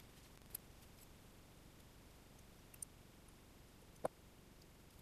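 Near silence broken by three faint clicks as small metal wire terminals are handled, the loudest a small tap about four seconds in.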